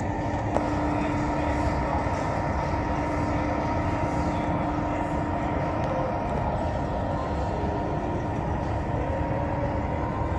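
Steady rumbling mechanical noise with a constant hum, and one short click about half a second in.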